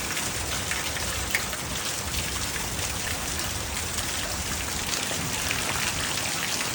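Heavy rain pouring down in a thunderstorm, water running off a roof, a steady hiss of falling water.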